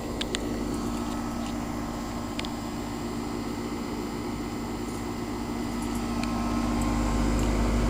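A 2002 Goodman 2-ton straight-cool central air-conditioner condensing unit running: a steady compressor hum over the rushing air of the condenser fan, with a few faint ticks. A low rumble swells near the end.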